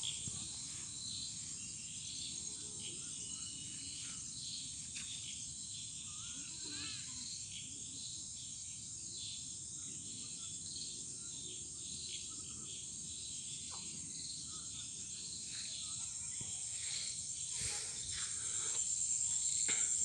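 Steady high-pitched chorus of crickets and other insects trilling along a riverbank, over a low rumble, growing slightly louder near the end.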